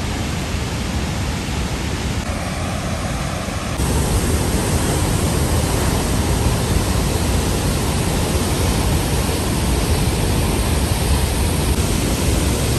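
Murchison Falls, the Nile pouring through a narrow rock gorge: a loud, steady rush of falling water that suddenly gets louder about four seconds in.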